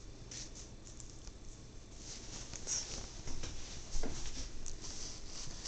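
Rustling of a hand stroking a dog's fur and the blanket under him, with scratchy handling noise on the camera's microphone and one louder knock about four seconds in.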